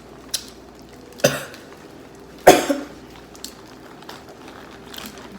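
A person coughing twice, the second cough the louder, with a few faint clicks of eating in between.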